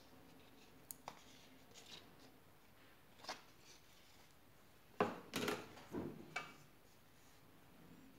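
Soft handling sounds as shea butter is scooped from a flexible tub and scraped into a stainless steel pan: light crinkles and scrapes, then a louder run of knocks and scrapes about five seconds in that lasts a second and a half.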